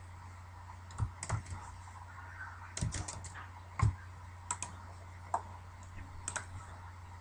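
Scattered clicks of a computer keyboard and mouse: a dozen or so irregular key taps and clicks, the loudest a little before the middle, over a low steady hum.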